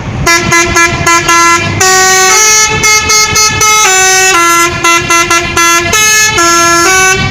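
Bus 'telolet' musical air horn playing a tune: a quick run of short notes for the first second and a half, then longer held notes changing pitch about every half second.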